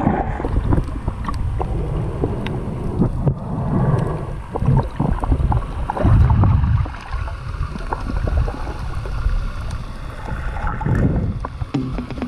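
Muffled water sloshing and rushing around an underwater camera as a snorkeler swims, in uneven surges with one loud swell about halfway through.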